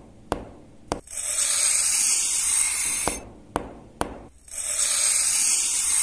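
A spray bottle hissing in two long sprays of about two seconds each, with a few sharp clicks before and between them.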